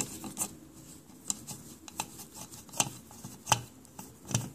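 Torx screwdriver turning out a small screw that holds the voice-coil magnet of a Western Digital IDE hard drive, making sharp, irregular metal clicks, about eight in all.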